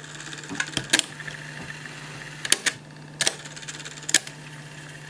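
Cassette stereo deck running with a steady low hum and no music on the tape, and sharp mechanical clicks from its transport mechanism several times, some in quick pairs.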